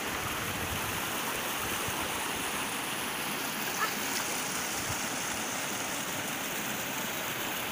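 Shallow rocky mountain stream flowing over stones: a steady, even rush of water.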